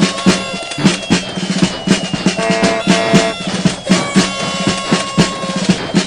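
Music with a fast, steady drum-kit beat under held melody notes.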